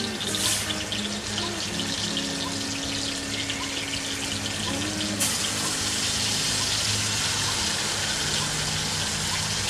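Marinated koi fish (climbing perch) sizzling as they go into hot oil in an iron kadai, a dense steady hiss with a brief surge about half a second in and a louder rise at about five seconds as more fish go in. Background music with held notes plays underneath.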